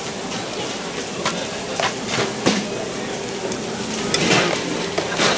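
Busy open-air market bustle: a steady background din with scattered sharp clacks and knocks.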